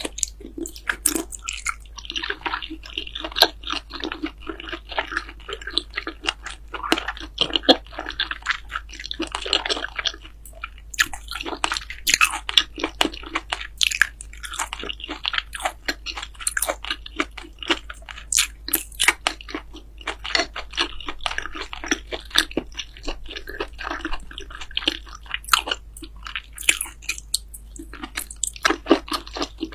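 A person eating close to the microphone: biting and chewing food in a dense run of crunching, crackling clicks that come in clusters with short gaps between them.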